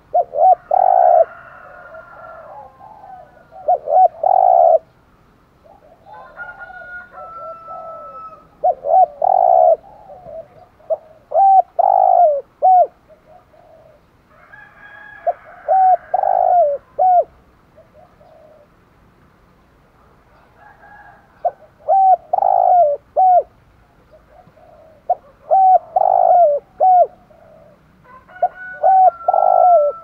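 Spotted dove cooing in the deep 'giọng thổ' voice: short phrases of a few low coo notes, repeated in about eight bouts with pauses of a few seconds between them.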